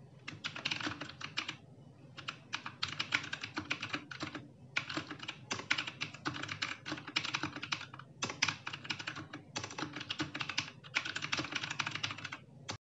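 Fast typing on a Rexus Legionaire MX3.1 mechanical keyboard with brown switches: rapid key clacks in flurries broken by short pauses, stopping abruptly near the end.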